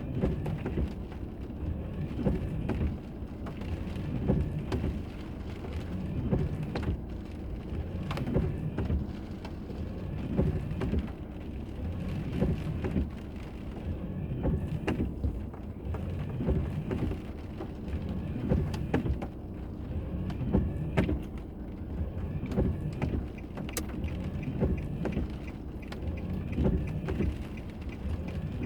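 A car's interior driving noise picked up by a dashboard camera: a steady low rumble of tyres and engine that swells and eases, with scattered small clicks and knocks.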